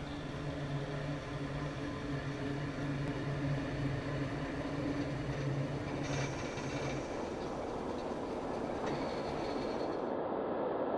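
Vintage electric streetcar approaching on its track: a steady low hum that stops about seven seconds in, and rumbling wheel-on-rail noise that grows louder as the car nears.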